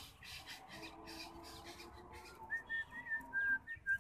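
A quick run of about seven short, clear whistled notes in the second half, each held briefly at nearly the same high pitch. Before them there is soft swishing and splashing as the bamboo pole works through the weedy water.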